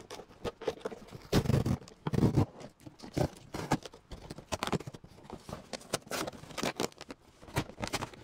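Corrugated cardboard mailer box being opened by hand: the lid's flaps and tabs scraped and pulled free, with quick rustling, scraping and clicking. Two heavier bumps come about one and a half and two seconds in.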